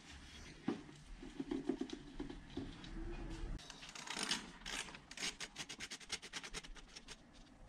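Gloved hands working an intake hose loose in a car's engine bay: rubbing and handling noise, then a fast, even run of clicks from about four and a half seconds in.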